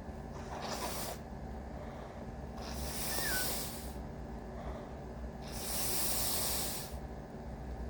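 A person's heavy breathing: three long, hissing breaths about a second or so each, with pauses between them, and no sneeze.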